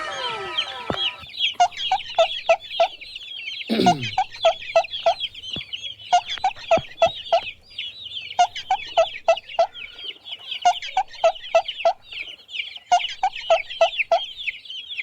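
Chicks peeping continuously in dense high chirps, with a hen clucking in regular runs of four or five clucks about every two seconds. A short downward swoosh about four seconds in.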